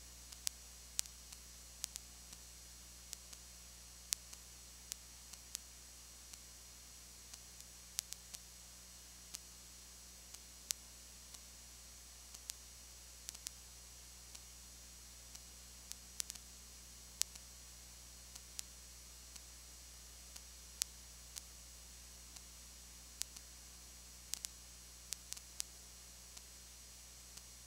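Recording noise with no game sound: a steady low electrical hum and hiss, broken by irregular sharp clicks about one or two a second. The noise comes from the videotape transfer.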